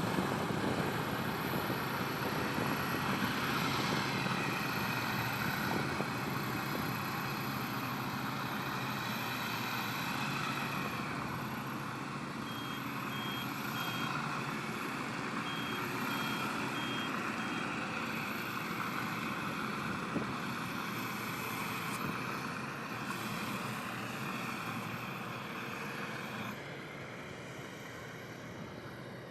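Combine harvester running steadily, its engine and threshing machinery making a dense mechanical din. A short run of high beeps sounds about halfway through.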